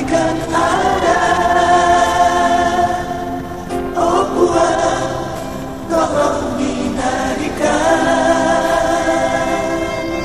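Background music: a Toraja song sung by several voices together in long held phrases, a new phrase starting every couple of seconds.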